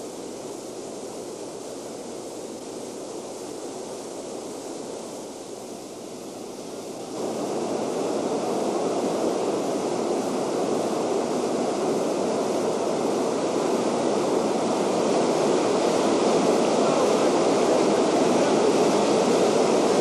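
Steady rush of a fast whitewater river. It is fainter at first and steps up louder about seven seconds in.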